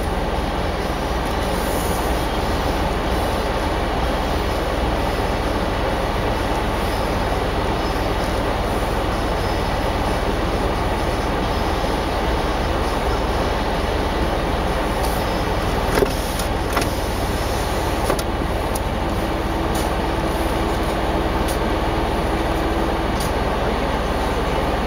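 Jeep Wrangler JK Unlimited engine idling steadily with the vehicle at a standstill, with a sharp click about two-thirds of the way through.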